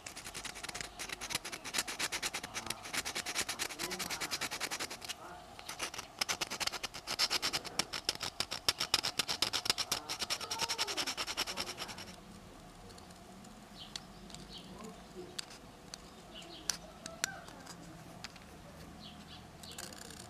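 Fast back-and-forth scraping strokes on a small wooden lure body being hand-shaped, in two long runs with a short break near 5 s. After about 12 s these give way to a few light, separate knife cuts.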